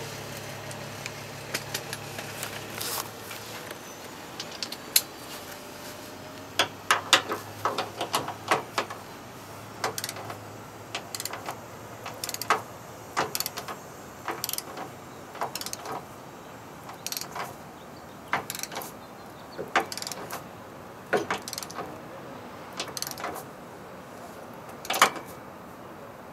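Click-type torque wrench ratcheting on a socket and extension as a bracket bolt is tightened by hand, in short irregular bursts of clicks with metallic clinks of the tool.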